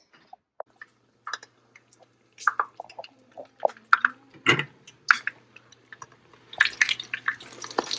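Soft, oily dough being pressed and pulled apart by hand on an oiled table: irregular sticky, wet smacks and clicks. A denser hiss builds up near the end.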